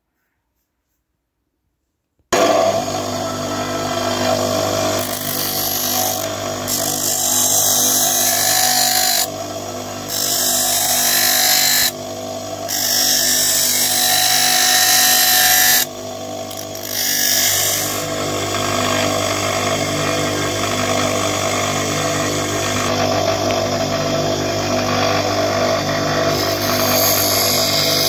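Bench grinder running with a steel knife blade held against the spinning wheel, a steady motor hum under a loud grinding hiss. The sound starts suddenly about two seconds in, and the grinding hiss drops out briefly three times while the motor hum carries on.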